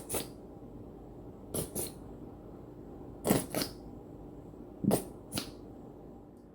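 Sharp clicks in pairs, four pairs about a second and a half apart, the two clicks of each pair close together.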